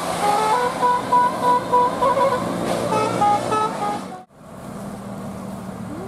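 A bus's basuri telolet horn playing a quick tune of short stepped notes over the bus's engine, cut off suddenly a little past four seconds in. After that, a quieter steady bus engine and road noise.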